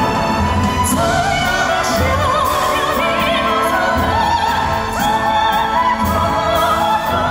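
A high male voice singing sustained, wavering vibrato notes over live orchestral accompaniment, the voice coming in about a second in, with a low beat about once a second underneath.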